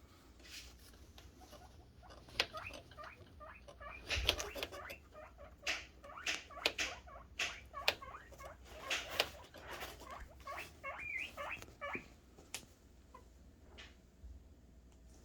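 Male guinea pigs squeaking in many short, excited calls for food, mixed with sharp clicks and rustling. The calls come thick through the middle and thin out near the end.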